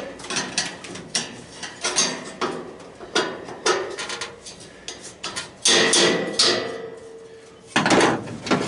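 Screwdriver prying and scraping at a stuck metal cap, giving a run of metal clicks and knocks with two louder scraping clanks in the second half, the first with a faint ring.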